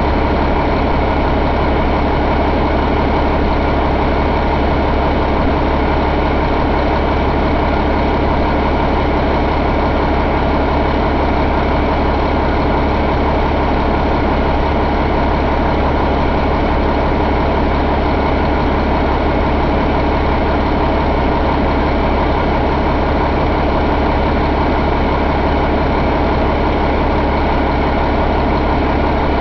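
2012 Cummins ISL inline-six diesel engine idling steadily.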